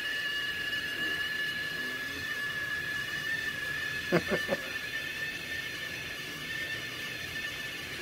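Hoffmann stainless-steel whistling kettle at a full boil, its spout whistle giving a steady, faint high whistle; the whistle is weak and barely audible. Three quick short sounds cut in about four seconds in.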